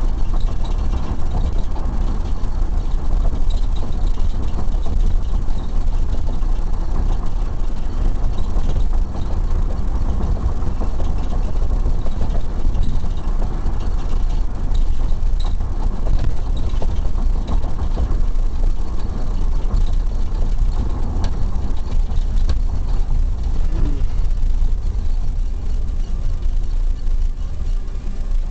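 Police car driving, its engine and road rumble steady inside the back-seat cabin.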